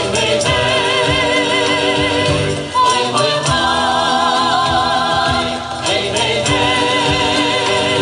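Tatar folk ensemble singing in chorus with vibrato over instrumental accompaniment and light, steady percussion.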